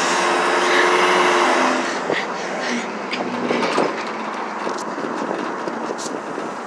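Moving pickup truck heard from its open bed: wind on the microphone mixed with engine and road noise. Loudest in the first two seconds, then rougher, with scattered knocks and rattles.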